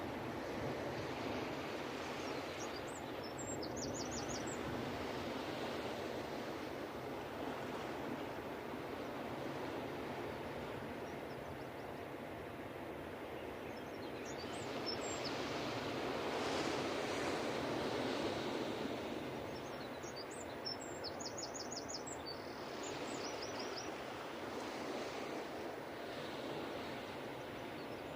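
Ocean waves washing onto a beach, a steady surf noise that swells a little past the middle. Small birds chirp above it several times in quick, short runs of high notes.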